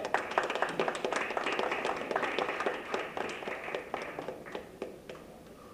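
An audience applauding in a hall, starting all at once and dying away over the last second or so.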